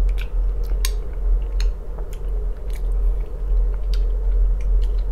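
Close-miked chewing of soft canned sprats in tomato sauce, with scattered wet mouth clicks and smacks, over a steady low hum.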